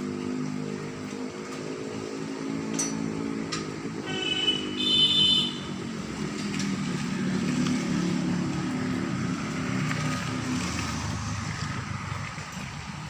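A motor vehicle's engine running, with a brief high tone about four to five seconds in.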